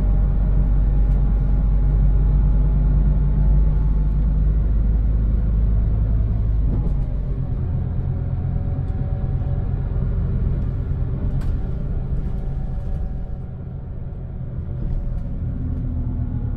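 Scania Interlink MD bus engine and running gear heard inside the cabin while driving: a steady low rumble with engine tones drifting up and down in pitch, briefly quieter about thirteen seconds in.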